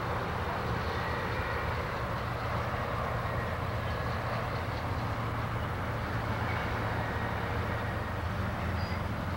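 Border Pacific locomotive 96's diesel engine running as the train moves slowly, a steady low drone.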